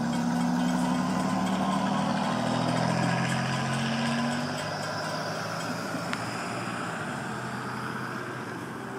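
Cars and pickup trucks moving off across a railroad crossing as the gates lift, with tyre noise. A vehicle engine's steady low note is loudest in the first four seconds or so, then eases off. A single faint click about six seconds in.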